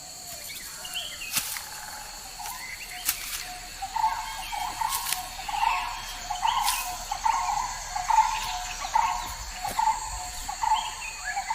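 Tropical forest ambience: a steady high insect drone at two pitches. From about four seconds in, an animal (likely a bird) repeats a short call about twice a second, and a few sharp clicks sound.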